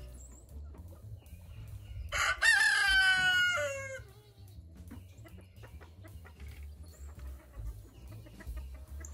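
A rooster crows once about two seconds in. It is a single call of about two seconds that drops in pitch at the end.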